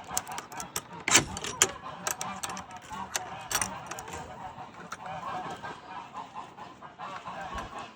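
Domestic geese giving short, repeated honking calls, with sharp clicks and knocks from something being handled; the loudest knock comes about a second in.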